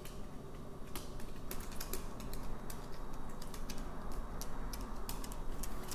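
Light, irregular clicks and taps, about one or two a second, over a steady low room hum.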